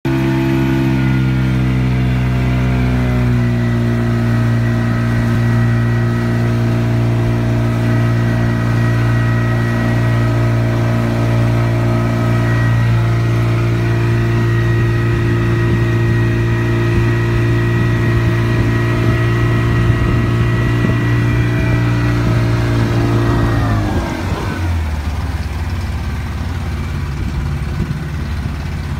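Small tourist boat's engine running steadily under way with a steady droning hum. About 24 seconds in, its pitch falls and it runs lower and slightly quieter, as the throttle is eased back.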